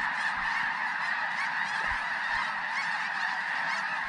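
A huge flock of snow geese calling overhead: a dense, steady din of many overlapping calls.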